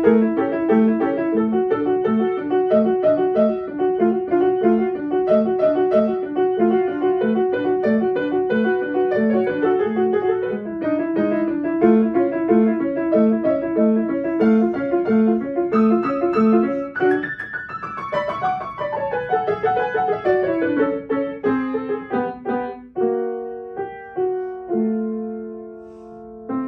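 Solo grand piano playing a brisk piece with rapid repeated notes, then a long run sweeping down the keyboard about two-thirds of the way through, settling into slower held chords that grow quieter near the end.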